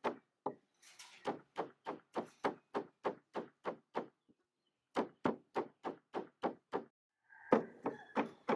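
A knife chopping on a cutting board in quick, even strokes, about three or four a second. The chopping stops briefly twice.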